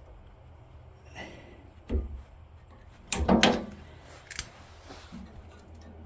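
A few sharp knocks and clanks of metal tools against the snowblower's auger, the loudest cluster about three seconds in, as a stuck shear bolt is worked at.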